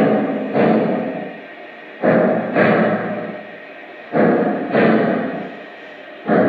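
Sound system of a model Union Pacific Big Boy steam locomotive playing slow steam exhaust chuffs through its small speaker. The chuffs come in pairs about every two seconds, each sudden and dying away.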